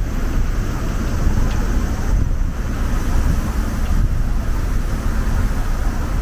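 Strong typhoon wind buffeting the camera microphone in an uneven, gusty low rumble, with a steady street hiss beneath it.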